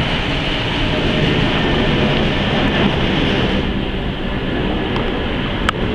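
Airbus A380 jet airliner passing low overhead: a steady, loud rushing engine noise from its four turbofans. The high hiss thins out a little past halfway as the plane moves on, and there is one short click near the end.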